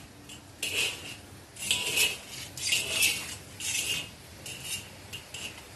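Metal tongs scraping and clinking against a wok, in short strokes roughly once a second, as pieces of vegetarian salted fish are turned while frying in oil.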